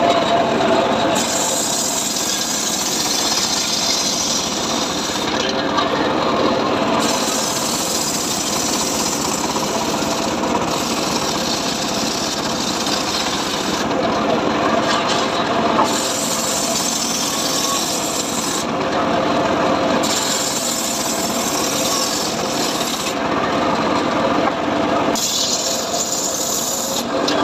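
Homemade table circular saw ripping johar wood. The cutting noise swells and drops back every few seconds over the blade's steady running, as piece after piece is fed through.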